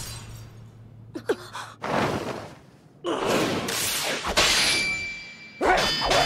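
Anime sword-fight sound effects: a shattering dies away at the start, then several whooshing swipes, one followed by a thin metallic ring about four seconds in, and a sudden loud strained voice cry near the end.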